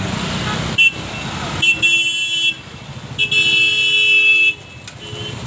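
Vehicle horns honking in busy traffic: a short toot about a second in, a honk of nearly a second, a longer honk of over a second, and a brief toot near the end.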